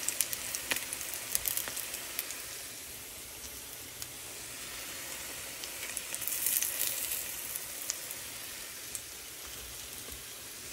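Hot oil sizzling steadily around banana koftas deep-frying in a pan as they are lifted out. There are scattered sharp ticks in the first two seconds, and the sizzle swells louder about six to seven seconds in.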